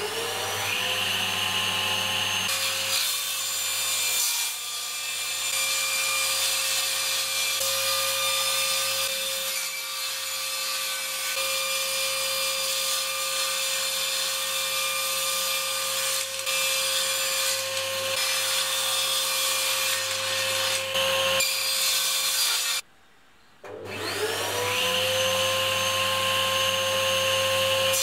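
Table saw spinning up with a rising whine, then running steadily while a sheet of aluminium is fed through the blade. The sound cuts off abruptly near the end, and the saw spins up again a second later.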